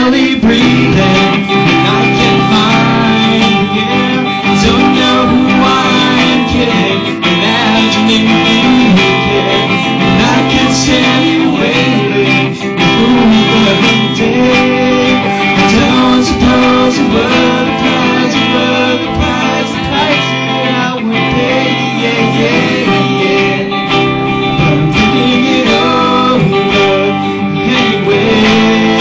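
Live pop-rock song played by a small band: electric guitar with a male voice singing over it.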